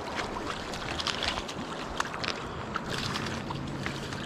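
Outdoor riverbank ambience: a steady wash of river water and wind on the microphone, scattered with small clicks and ticks. A faint low hum comes in about three seconds in.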